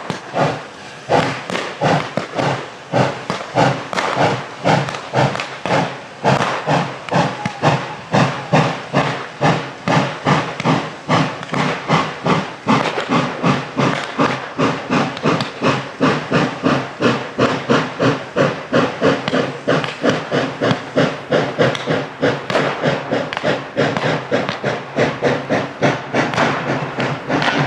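1916 Vulcan 2-6-2 Prairie-type steam locomotive No. 4 chuffing hard as it pulls its train away, its exhaust beats quickening from about one a second to about three a second as it gathers speed, over a steady steam hiss.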